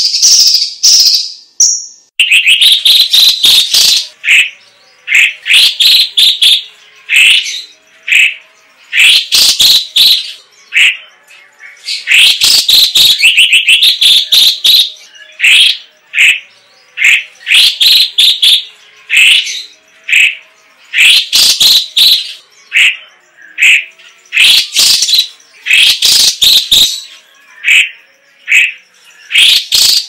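Cucak cungkok, a caged leafbird, singing loud, high, quick chattering and whistled phrases, one after another with short pauses between. The first two seconds are a buzzy, hissing trill before the phrases begin.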